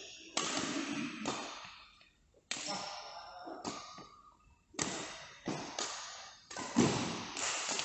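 Badminton rackets striking a shuttlecock in a rally. The hits come about a second apart, then quicken in the second half, and each rings on in the hall's echo.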